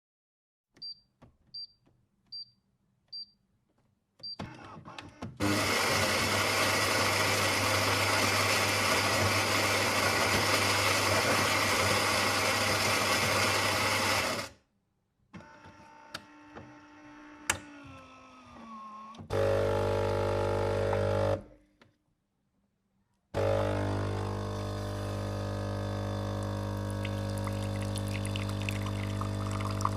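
Coffee machine brewing cycle: five short beeps, then the grinder running loudly for about nine seconds, a few mechanical clicks and a falling whir, then the pump humming steadily in two spells with a short silent pause between them, and coffee starting to pour near the end.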